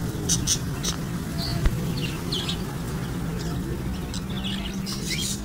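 Caged budgerigars and other small parrots chirping in short, scattered calls that come more often near the end, over a steady low background rumble.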